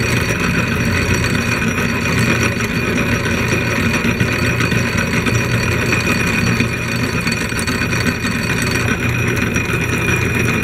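A.D. Vance No. 12 blacksmith drill press running steadily under its 3/4 horsepower Emerson electric motor: a constant motor hum with the mechanical rattle of the gear drive.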